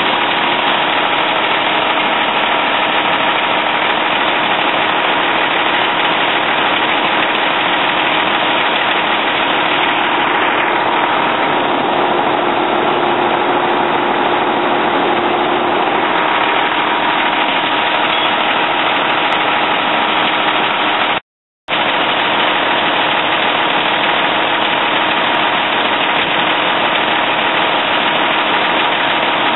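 Fire engine's engine running steadily at the fireground, a loud constant drone. The sound cuts out completely for a moment about two-thirds of the way through.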